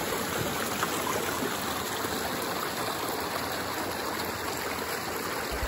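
Small outlet creek of a lake running steadily over and between boulders, a continuous rushing with no breaks. The creek is at low water, the level down about a foot.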